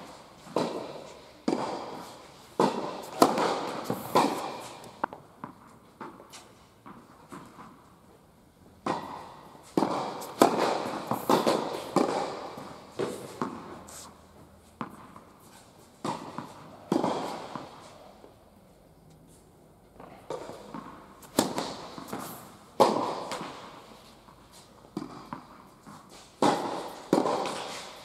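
Tennis balls struck by rackets and bouncing on an indoor hard court, the sharp pops echoing around a large hall. The hits come in several rallies of quick strikes, with quieter gaps between points.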